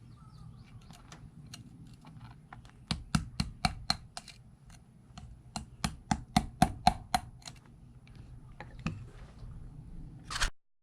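Sharp metal-on-crust taps in two quick runs of about four a second: a hand tool chipping rust and rock encrustation off a dug Civil War cap-and-ball revolver. One louder click comes just before the sound cuts off near the end.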